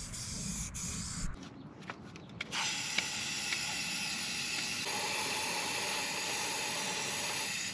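Aerosol spray-paint can hissing: a few short spurts, then one long steady spray from about two and a half seconds in.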